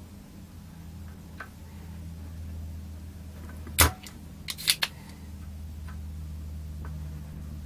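A spring-loaded desoldering pump (solder sucker) fires with one loud sharp snap, followed about a second later by a quick run of three or four clicks, over a steady low hum.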